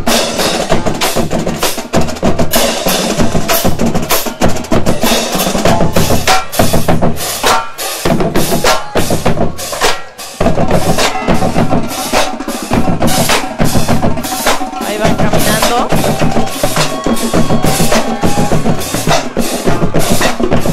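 Marching drumline playing a cadence: snare drums, bass drums and crash cymbals struck in a fast, dense rhythm, with a brief break about halfway through.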